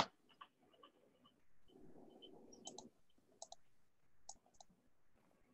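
Faint clicking: a sharp click right at the start, then short clicks coming in quick pairs every second or so, with a soft rustle about two seconds in.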